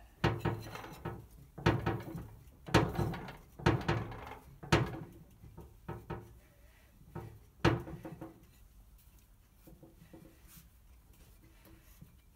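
Citroën 2CV flat-twin engine being turned over by hand with a tool on the crankshaft, to bring a valve fully open. About seven short strokes, each starting sharply and fading, come roughly a second apart; after that there are only faint clicks and handling.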